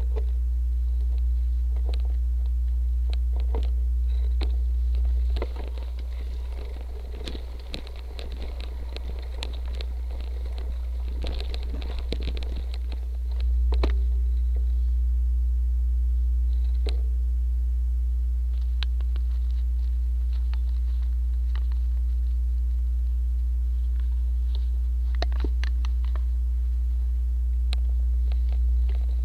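Bike-mounted Cycliq camera recording a steady low electrical hum with a faint steady tone, with scattered clicks and rattles as the cyclocross bike rolls over a rocky dirt trail. From about five seconds in to about thirteen seconds the hum dips and a dense crackle of gravel and rattling takes over, then the steady hum returns.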